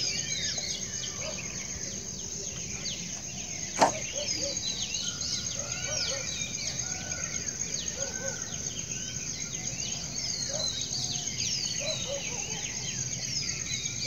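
Many birds chirping over a steady high insect drone. A single sharp knock about four seconds in is the loudest sound.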